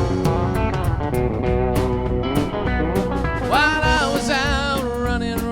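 Country band music: electric guitar over a drum kit playing a steady beat in an instrumental passage, with a wavering vocal line coming in a little past halfway.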